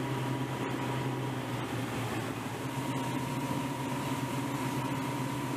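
Outboard motors of a patrol boat running at high speed: a steady low engine drone with a thin, steady whine above it, under an even rush of water and wind.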